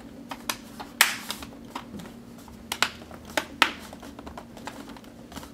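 Plastic retaining clips of an Acer Aspire 5738 laptop's screen bezel snapping into place as the bezel is pressed down by hand: a series of short, sharp clicks, about six in the first few seconds, the loudest about a second in.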